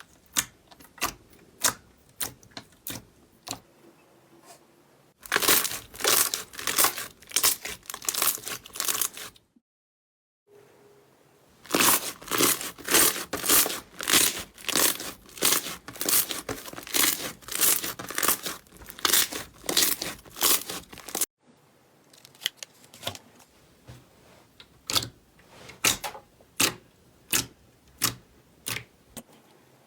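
Slime being squeezed and pressed by hand, making sharp pops and crackles. The pops come sparsely at first, then in two dense rapid runs separated by a brief silent cut, and thin out again near the end.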